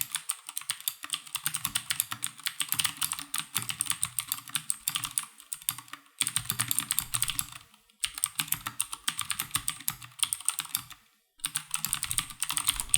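Fast typing on a Durgod Taurus K310 mechanical keyboard with Cherry MX switches: a rapid clatter of keystrokes in runs of a few seconds, with three short pauses, about six, eight and eleven seconds in.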